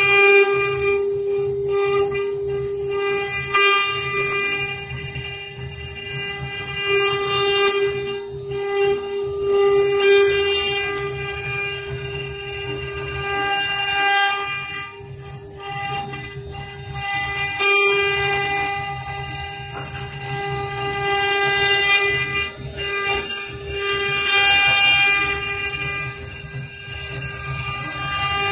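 Multi-spindle CNC router's four spindles running and cutting into a wooden board: a steady whine with overtones over a low hum, and a hissing rasp of cutting that swells and fades every three to four seconds.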